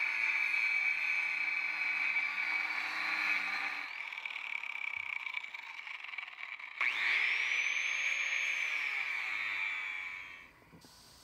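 Angle grinder cutting a steel lawn mower blade, a steady high whine. It drops away about four seconds in. Nearly seven seconds in the grinder starts again, its whine rising as it spins up, then it winds down to a stop near the end.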